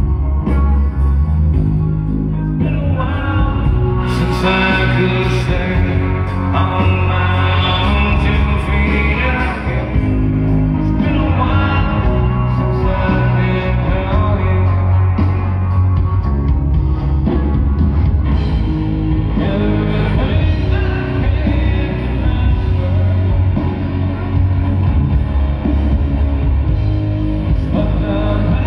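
Live rock band playing: a male singer over electric guitar, bass and drums, heard loud from within the audience.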